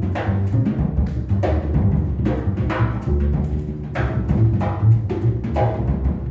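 Jazz piano trio playing live: acoustic piano, double bass and drum kit, with the drums and the low bass notes to the fore and sharp drum and cymbal strikes about twice a second.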